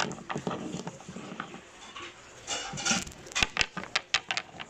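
Small toys being handled on a tabletop: a series of light clicks and taps, busiest in the second half, with a short stretch of rustling about halfway through.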